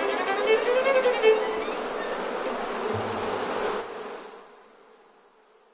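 A swarm of honeybees buzzing around the hive, with single bees droning past in wavering pitches. The buzzing fades away about four seconds in.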